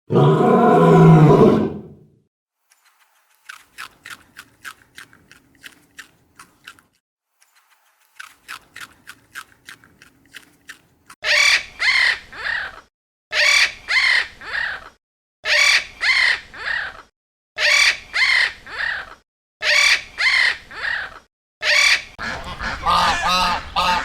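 A string of animal calls: a loud, rough, low call for the first two seconds, then two runs of rapid faint chirps. After that come loud pitched calls in pairs, repeated about every two seconds, and near the end a dense flurry of overlapping calls.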